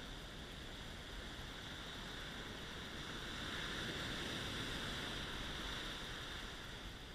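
Surf breaking and washing up a sandy beach, with wind on the microphone: a steady rush that swells for a few seconds about halfway through as a wave breaks and runs up the sand.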